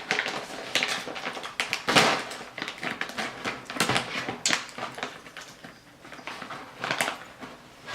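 Snack packet of cracker mix being pulled and torn open, irregular crinkling and crackling with sharper rips, the loudest about two seconds in.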